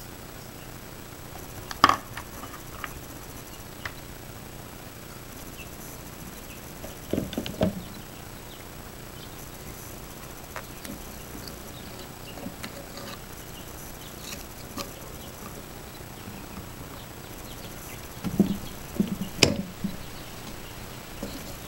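Scattered clicks and short knocks from handling a plastic shotgun hull and working a homemade hand-operated shotgun shell reloading press: one sharp click about two seconds in, a few knocks around seven seconds, and a busier run of knocks and clicks near the end, over a low steady hiss.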